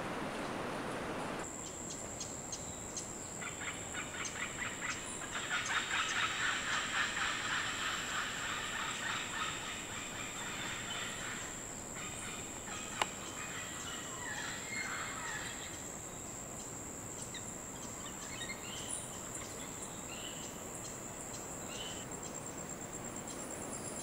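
Birds calling in the forest: a fast run of repeated harsh notes for several seconds, then scattered calls that slide in pitch, over a steady high-pitched whine. The first second and a half is a steady hiss.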